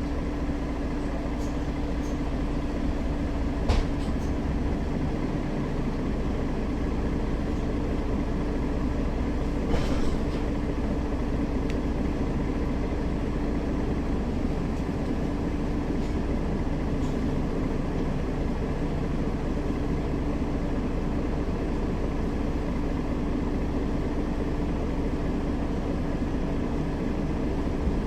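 Mercedes-Benz Citaro facelift city bus driving between stops, heard from inside the cabin: steady engine and road rumble with a steady hum. There are short knocks or rattles about 4 and 10 seconds in.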